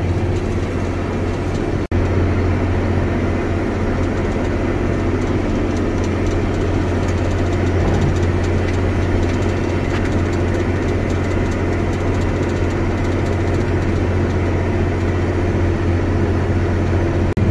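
Tractor engine running steadily under load while pulling an air drill, heard from inside the cab as a constant low drone. The sound cuts out for an instant about two seconds in.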